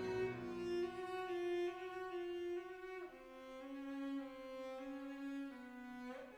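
Background music: bowed strings such as cello and violin playing slow, held notes that change pitch every second or few.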